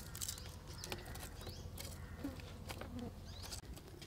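A clay charcoal stove being lit with plastic and thin kindling: quiet rustling and a few small ticks, with faint chirps about two and three seconds in.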